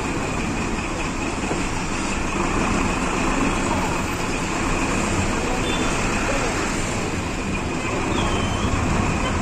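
Steady street traffic noise: a continuous hum of vehicle engines, heaviest in the low end.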